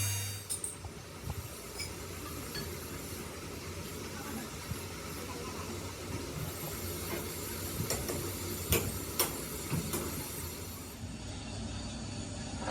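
A running machine's low hum cuts off right at the start, leaving a steady low hum and hiss of workshop machinery. A few sharp metal clinks sound over it, several close together about eight to ten seconds in.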